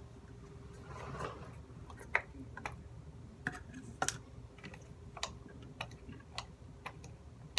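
Light, irregular clicks and taps, roughly one or two a second, from a container and utensil being handled while slime ingredients are squirted in and mixed. There is a brief soft hiss about a second in.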